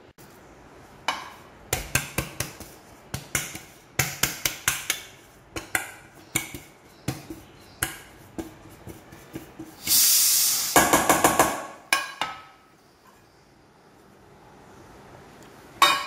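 Flour-dusted aluminium cake pans tapped and knocked repeatedly as the flour coating is shaken around and the excess knocked out, with a brief rush of noise about ten seconds in.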